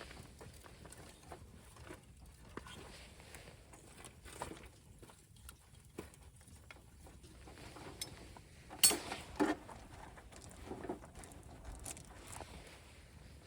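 Wood campfire crackling, with scattered sharp pops and snaps; the loudest two come close together about nine seconds in.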